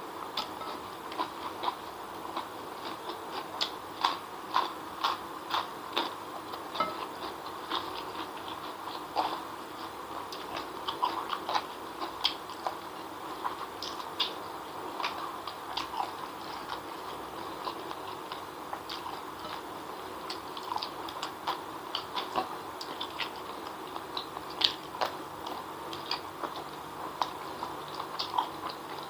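Close-miked mouth eating sounds: wet chewing and lip smacking, heard as many irregular clicks over a steady background noise, from a person eating fried noodles and spicy chicken feet.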